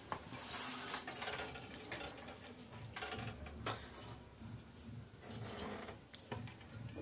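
Steel ladle clinking and scraping against a steel pan and plate as curry is served over rice, with scattered light metallic knocks.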